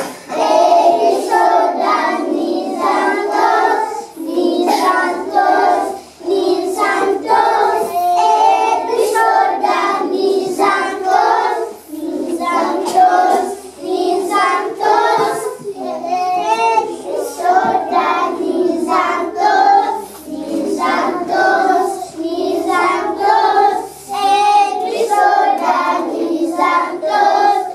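A group of young children singing a local Ugandan song together in unison, phrase after phrase, with only brief pauses between phrases.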